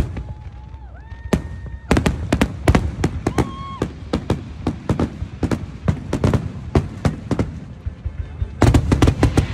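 Fireworks display: a rapid string of booms and crackling bursts, growing dense about two seconds in and heaviest near the end.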